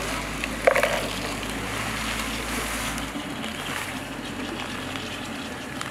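Steady rush of water running and splashing in an archaeobotanical flotation setup. A brief sharp sound stands out about a second in.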